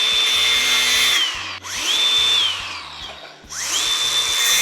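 Angle grinder cutting plastic cable raceway in bursts: the motor spins up to a high steady whine with a hiss of cutting, then winds down. One run ends about a second in, a short burst follows around two seconds, and another starts near the end.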